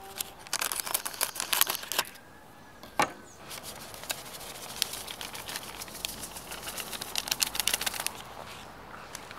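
Scissors snipping open a paper sachet, then the sachet crinkling as powder is shaken out of it, heard as a long run of fine, rapid crackles and clicks. There is one sharper click about three seconds in.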